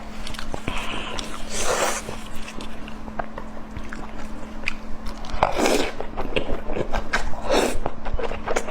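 Close-miked mukbang eating sounds: a person biting and chewing food, with many small wet clicks and three longer, louder noises about one and a half, five and a half and seven and a half seconds in, over a steady low hum.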